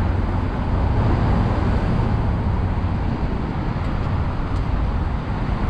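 Steady road traffic: cars driving past on a multi-lane city road, a continuous rumble of engines and tyres.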